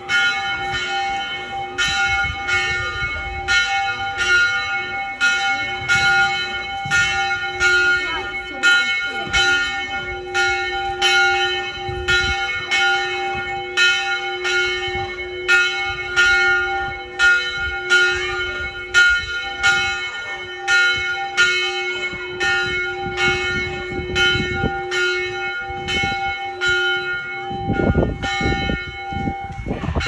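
A swinging church bell tolling, struck by its clapper in a steady rapid rhythm of a little over one stroke a second, each stroke ringing on over the next: the church's 6 pm evening bell. Near the end the strokes die away and a low rumbling noise comes in.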